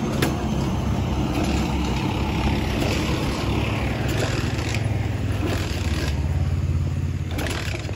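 Small motorcycle engine running, its note rising and holding higher for a few seconds from about three and a half seconds in, then easing near the end, with a few sharp knocks.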